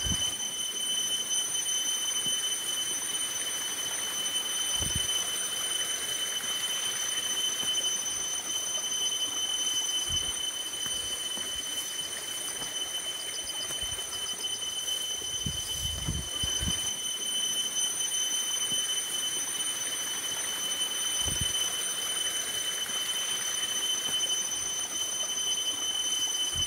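Water running and splashing into a plastic basin as a woman bathes, with a few soft low thumps of scooped or poured water, about 5, 10, 16 and 21 seconds in. A steady high-pitched whine with overtones runs through it all.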